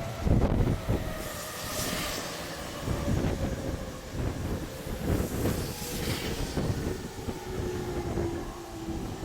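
Electric train running past, its wheels thumping over rail joints about once a second. In the second half a motor whine falls in pitch.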